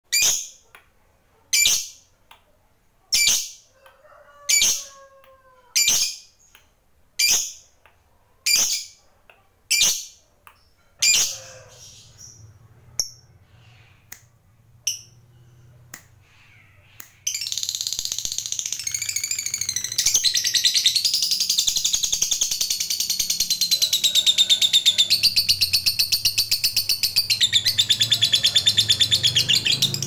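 Lovebird calling: sharp single shrieks about every second and a half, thinning to sparser, fainter calls, then about seventeen seconds in breaking into a loud, rapid, unbroken chatter, the long 'ngekek' song prized in fighter lovebirds.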